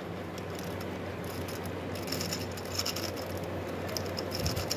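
Plastic gear cube being turned by hand: light clicking and rattling of its geared pieces, mostly in the second half, over a steady low hum.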